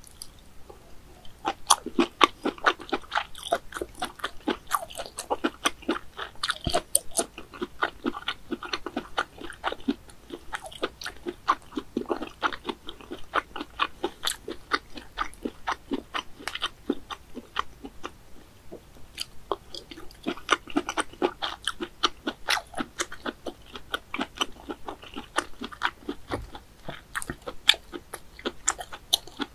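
Close-miked ASMR chewing of boiled snail meat: dense, rapid clicking mouth noises with a short pause about two-thirds of the way through.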